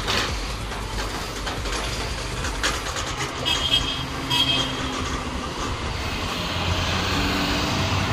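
A vehicle engine running with a steady low rumble and a few knocks, its pitch rising slowly and getting louder near the end as it picks up speed.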